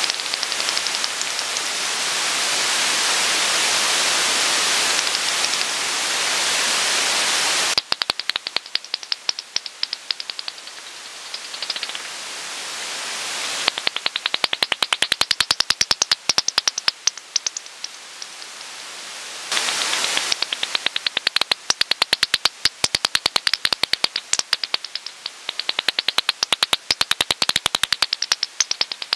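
Bat echolocation calls made audible by a bat detector: a steady hiss for the first eight seconds or so, then long runs of rapid clicking as bats pass, broken twice by brief stretches of hiss.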